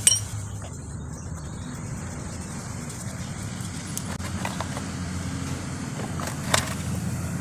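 Metal clinks and taps from tools and bolts as the front sprocket cover of a motorcycle is unfastened and taken off. There is a sharp click right at the start, a lighter one about four seconds in and a louder one near the end, over a steady low hum.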